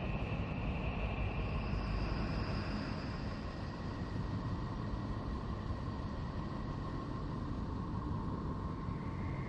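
Space-sound drone of Neptune, billed as NASA Voyager's recording: a steady deep rumble with faint, thin held whistling tones above it that slowly fade in and out.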